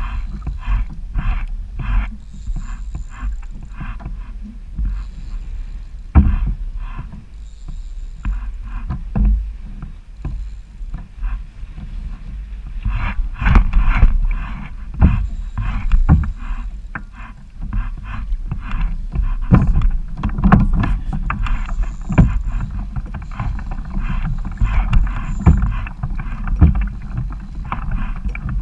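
Kayak moving through choppy, wind-driven water: repeated splashes and knocks of water against the hull over a steady low wind rumble on the microphone. For the first several seconds they come at a fairly even pace, about two a second, and they grow busier and louder from about halfway through.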